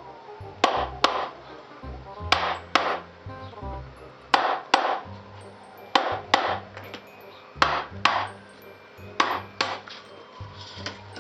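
Sharp blows on a block of wood held against a BBS RS three-piece wheel, beating around it to split the wheel apart, struck in pairs about every one and a half to two seconds, over background music.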